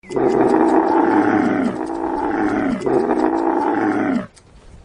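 Camel bellowing: three long, rough calls run together, each sliding down in pitch, stopping about four seconds in.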